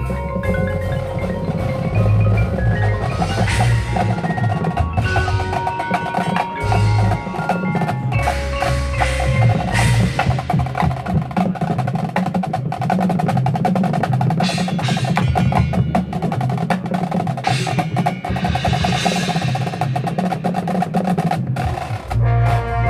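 Marching band percussion passage: drums and front-ensemble mallet keyboards (marimba, xylophone, glockenspiel, chimes) playing a dense, continuous rhythmic figure.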